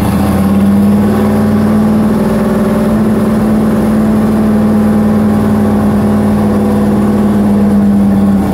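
Turbocharged 5.3 L LS V8 in a 1987 Chevy S10 held at high revs on the two-step launch limiter, running loud at one steady pitch.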